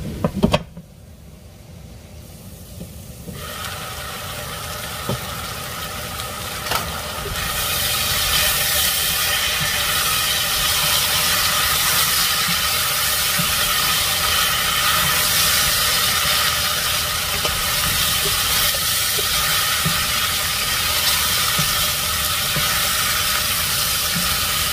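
A pot's glass lid clatters at the start. Then diced potatoes and smoked sausage sizzle in the pot, faint at first and growing to a steady hiss about seven seconds in as they fry uncovered and are stirred with a spatula.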